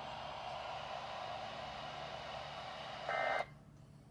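Static hiss from a NOAA weather radio receiver on an open channel. About three seconds in there is a brief louder burst, and then the hiss cuts off suddenly as the transmission ends.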